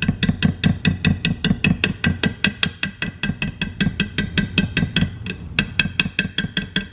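Wire whisk beating thick batter in a bowl: rapid, even strokes clacking against the bowl's side at about five or six a second, with a brief pause about five seconds in.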